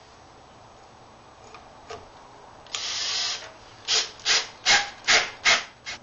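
Cordless impact driver driving pocket-hole screws into the wooden frame: one run of about half a second, then five short, loud bursts about a third of a second apart.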